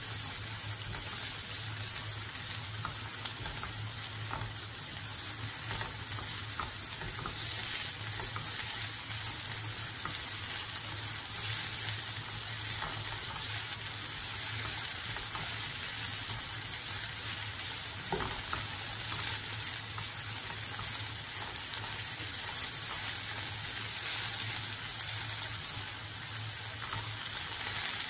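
Chopped onion and cumin seeds sizzling steadily in hot oil in a nonstick frying pan while being sautéed. A spatula stirs them, scraping and tapping against the pan now and then, over a steady low hum.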